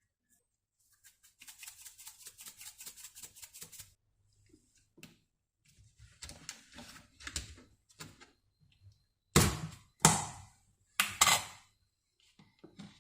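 Kitchen food-preparation sounds: a run of quick light taps, about eight a second, for a couple of seconds, then handling noises and three loud sharp knocks against a hard surface.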